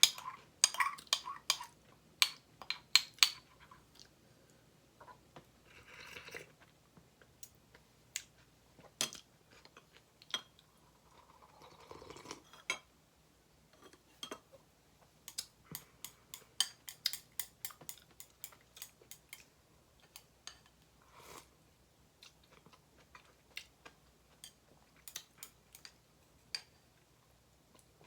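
A person eating close to the microphone: chewing with many sharp, crunchy clicks in uneven clusters, and the odd clink of cutlery or dishes.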